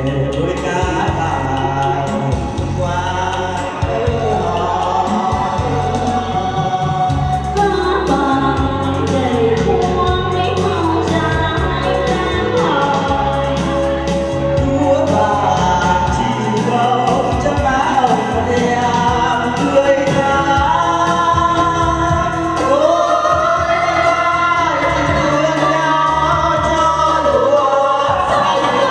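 A song sung live into microphones by a man and women taking turns and together, over a backing track with a steady bass line.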